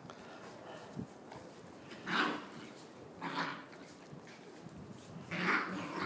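Puppy play-barking: three short barks, the first about two seconds in and the last near the end.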